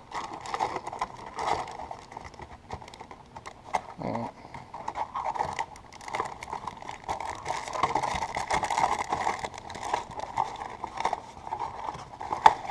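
Hand rummaging through a cardboard box of fishing lures: plastic lure packages crinkling and crackling against each other and the cardboard, in irregular small clicks and rustles.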